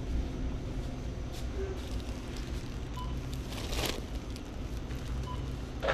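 Steady low rumble of a car interior, with a brief rushing noise just before four seconds in.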